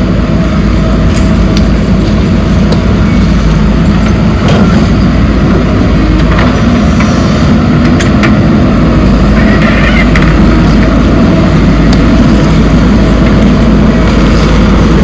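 Diesel engine of a backhoe loader running steadily while working soil, with a few short, sharp knocks scattered through.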